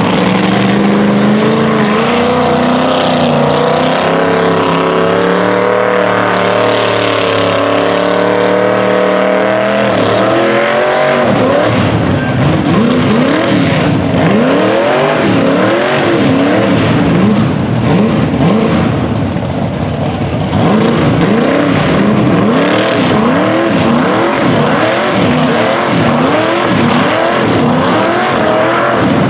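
A mud truck's engine at high revs under heavy load in deep mud. For the first ten seconds or so it holds a steady, slightly wavering pitch. Then it revs up and down over and over, about every second and a half, as the tractor tyres catch and spin.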